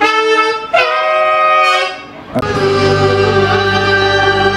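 Saxophones playing a phrase of held melodic notes in a dangdut band. About two seconds in there is a short break, then a sharp hit, and the full band comes in with sustained chords over a steady bass.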